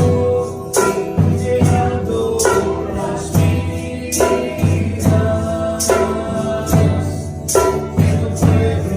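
Spanish-language Christian praise music (alabanza) with tambourine and singing over a band, on a steady beat.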